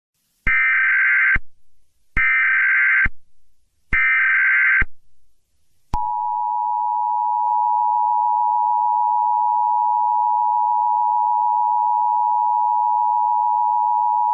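Emergency Alert System broadcast tones: three short, identical bursts of screechy data tones (the SAME header), each about a second long with short gaps between them, then the steady two-tone attention signal, which begins about six seconds in and holds.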